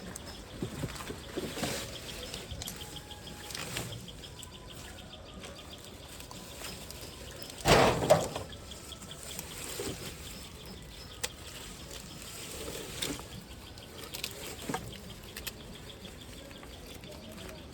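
Steady rain with scattered light patter, and one loud, short sound about eight seconds in.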